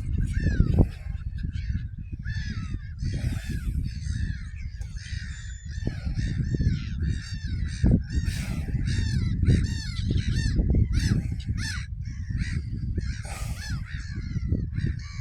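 Gulls calling over and over, a long run of short harsh calls coming one after another, over a steady low rumble.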